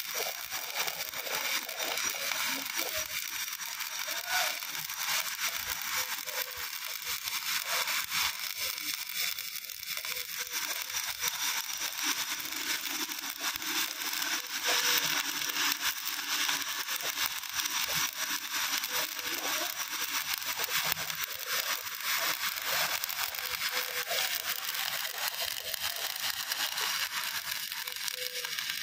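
Stick (shielded metal arc) welding with an E6013 electrode on a carbon-steel pipe-to-flange joint: the arc burns with a steady, continuous crackle and sizzle throughout.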